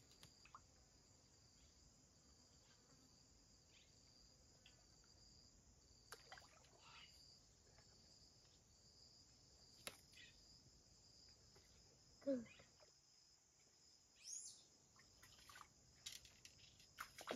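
Near silence over a faint, steady, high-pitched insect drone, with a few faint ticks, one brief louder sound about two-thirds of the way in and a short high glide soon after.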